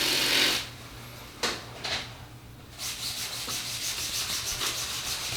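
Rubbing and scraping noises: a short burst of rustling, two sharp knocks, then a steady rhythmic scrubbing about four or five strokes a second, over a low steady hum.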